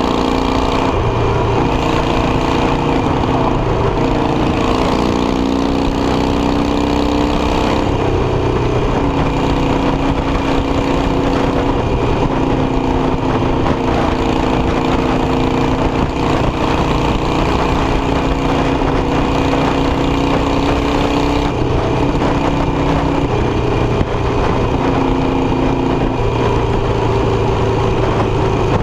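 Harley-Davidson Iron 883 Sportster's air-cooled V-twin running under way, heard from the rider's seat. The engine note climbs a few seconds in, steps down about eight seconds in, then holds at a steady cruise.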